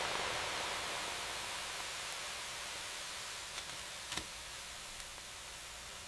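A steady hiss that slowly fades, with a couple of faint clicks about four seconds in.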